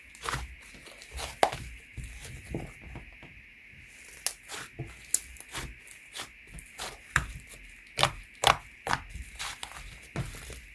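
Clay slime being kneaded, pressed and stretched by hand: irregular sticky clicks, snaps and pops, a few a second in busy stretches, over a faint steady hiss.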